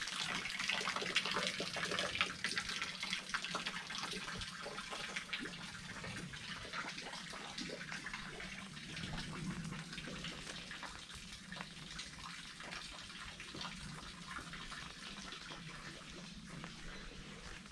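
Running water trickling and splashing, with many small drips, growing steadily fainter.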